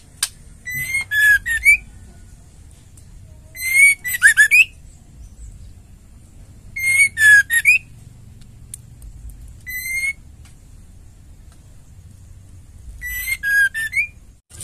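White-rumped shama singing in short bursts about every three seconds, five phrases of clear whistled notes that slur up and down mixed with rapid high chattering. A sharp click sounds at the very start.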